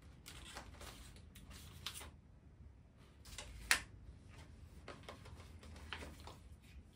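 A small cardboard box being opened and its contents handled: faint rustling and light scrapes, with one sharper click a little under four seconds in.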